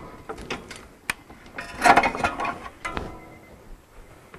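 Metal knocks and clicks as a steel pry bar levers a car's lower control arm down to free the tapered lower ball joint from the steering knuckle. One sharp click comes about a second in, and a louder, briefly ringing clatter about two seconds in.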